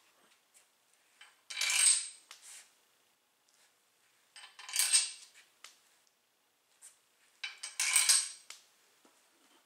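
Hand work on a bare diesel engine block: three short bursts of metallic scraping and clinking, about three seconds apart.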